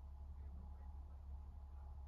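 Faint, steady low rumble of bus and train background noise, with a thin even hiss above it.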